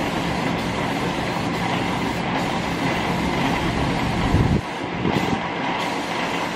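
Diton Premium aerosol spray-paint can hissing steadily as paint is sprayed onto a motorcycle wheel rim in sweeping passes, briefly easing about four and a half seconds in.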